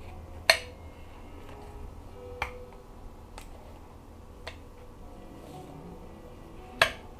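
A few sharp clicks and taps of parts and tools being handled while fitting a transmission clutch piston. The loudest comes about half a second in, another near the end, and two lighter ones fall in between.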